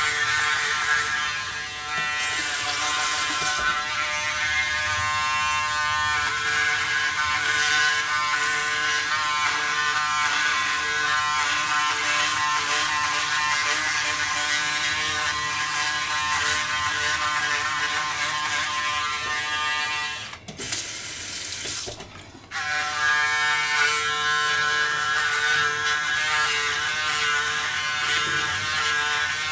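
Braun Series 7 360 Flex electric foil shaver running with a steady buzz as it is worked over gel-lathered stubble in a wet shave. The buzz drops out for about two seconds roughly two-thirds of the way through, then comes back.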